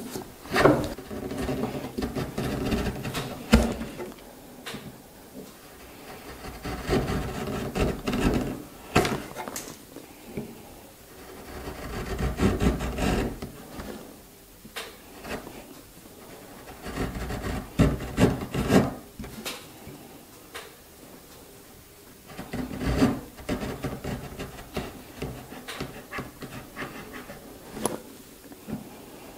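Freshly sharpened Stanley Bailey wood chisel paring a wooden board by hand, each push scraping off a thin curled shaving. The strokes come one after another, a second or two long with short pauses between them. The edge cuts with little force, a sign that it is sharp.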